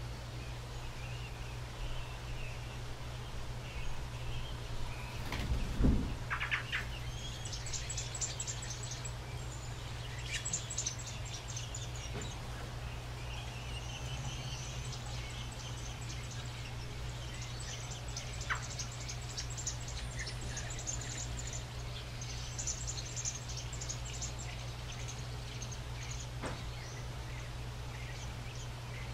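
American robin nestlings begging for food: bursts of rapid, high-pitched chittering that come and go as the adult feeds them. Under it runs a steady low hum, and a single thump sounds about six seconds in.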